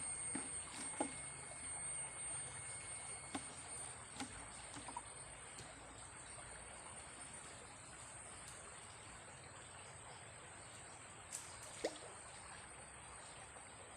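Small stream trickling faintly, with a few light clicks and a thin steady high-pitched tone over it.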